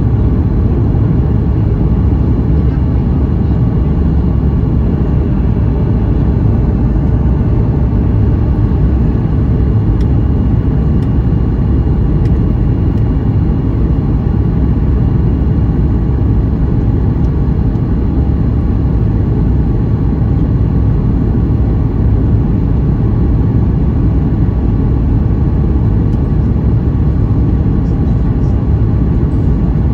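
Steady low cabin rumble of a Boeing 737 MAX 8 on approach, its CFM LEAP-1B engines and the rush of air over the wing with the flaps extended, heard from a window seat over the wing. The sound stays at one level throughout.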